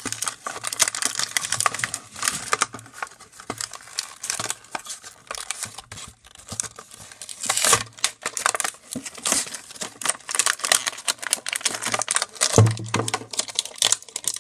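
Cardboard and clear plastic toy packaging crinkling and tearing as it is pulled apart by hand, in a dense run of irregular crackles, with one dull bump near the end.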